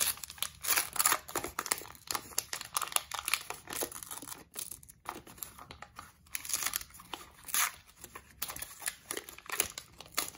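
Card-pack wrapper crinkling and tearing as it is handled and opened, a run of irregular crackles.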